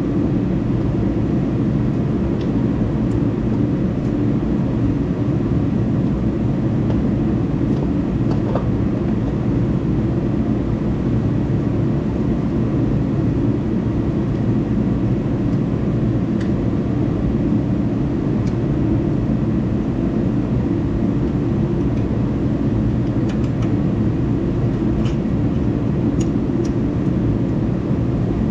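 Steady low mechanical drone, like a motor or engine running, with a few faint clicks about eight seconds in and again near the end.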